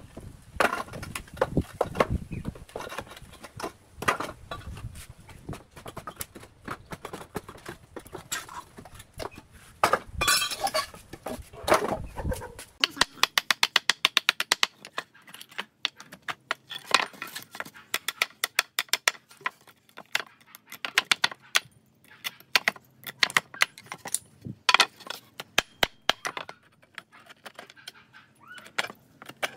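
Pallet being dismantled: a pry bar levering nailed pallet boards apart, with knocks and scraping of wood on wood. About halfway through this gives way to a hammer striking protruding nails in a pallet board, in quick runs of sharp taps and single blows.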